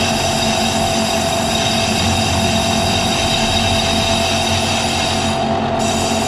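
Milling machine facing an aluminium motorcycle crankcase with a diamond-insert cutter: a steady, even machining noise with several high steady whining tones. The cutter is flattening the cover's mating face so the cover will seal without leaking.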